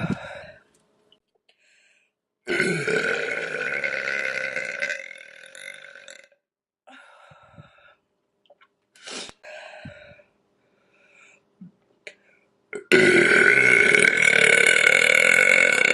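A woman burping: a long, drawn-out burp of about four seconds a couple of seconds in, a few short quieter sounds after it, then a second long burp, the loudest, starting near the end.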